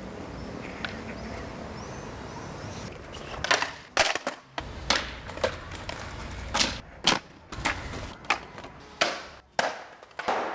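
Skateboard tricks on street asphalt: after a few seconds of steady low background, about a dozen sharp board pops, clacks and landings come in quick succession, with wheels rolling on the ground between them.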